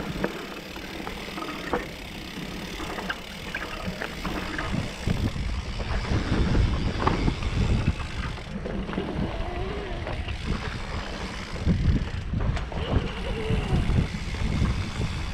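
Mountain bike descending a dirt singletrack, heard from a camera on the bike: wind buffeting the microphone in a gusty low rumble, tyres running on loose dirt, and the bike rattling in short knocks over bumps.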